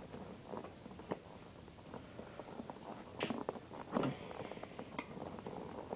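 Quiet scraping and small clicks of a screwdriver levering a solid rubber tyre over the edge of a bicycle rim, with two louder scrapes about three and four seconds in.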